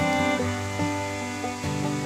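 Background instrumental music led by plucked strings, with notes plucked in a steady run.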